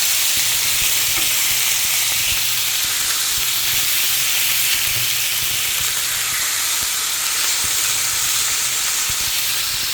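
Marinated bulgogi beef sizzling hard in hot oil in a frying pan, a loud steady hiss with occasional knocks of stirring. A low steady hum runs beneath it.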